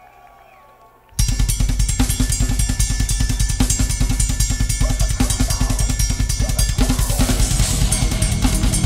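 Drum kit played at a fast thrash metal pace: a rapid, even run of bass drum strokes under snare hits and cymbals, starting abruptly about a second in, with the cymbals swelling near the end.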